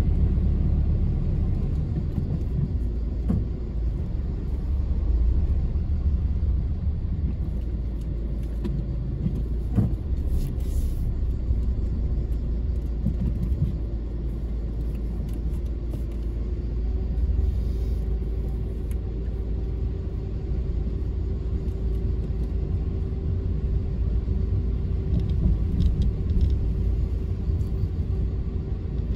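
Car driving on the road: a steady low rumble of engine and tyres, with a steady hum becoming clearer about halfway through.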